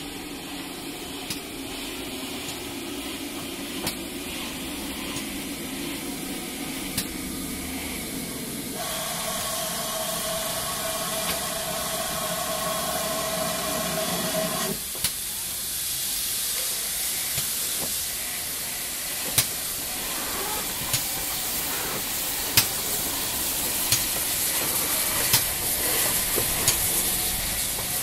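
Standing steam locomotives letting off steam in a steady hiss. A steady whine of several tones starts abruptly about a third of the way in and stops abruptly some six seconds later. In the second half the hiss grows, with a few sharp knocks.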